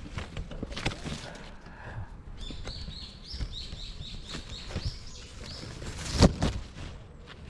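A songbird calling a quick run of about a dozen short, high, even notes, about four a second, from a few seconds in until past the middle. Around it, clicks and rustles of handling through the brush, with one sharp knock about six seconds in.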